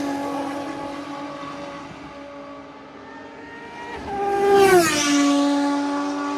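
Ferrari race cars at speed on the circuit, their engines holding a steady high note. One that has just gone by fades at first. Then, about four and a half seconds in, another passes close by, the loudest moment, its engine note dropping sharply in pitch as it goes past.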